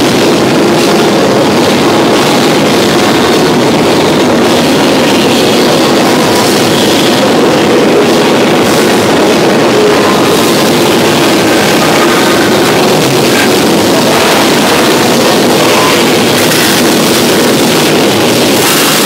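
Loud, steady drone of workshop machinery, with a few faint knocks and clicks near the end.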